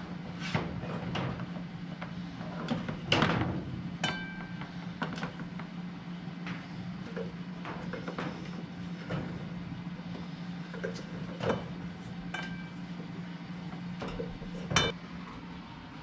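Scattered knocks and clinks from cords and fittings being handled against sheet-metal ductwork and wooden joists, a few of them ringing briefly; the loudest come about three seconds in and near the end. A steady low hum runs underneath.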